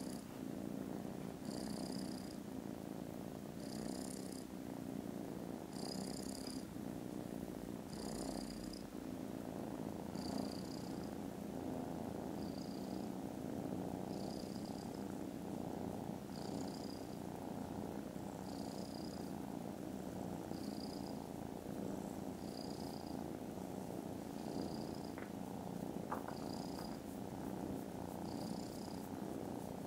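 Kitten purring, a steady low rumble, with a faint high hiss about every two seconds.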